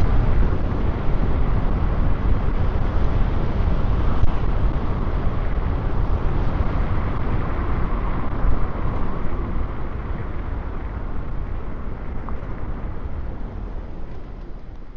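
Wind rushing over the microphone with road and motor noise from an electric scooter riding at speed, easing off over the last few seconds as it slows.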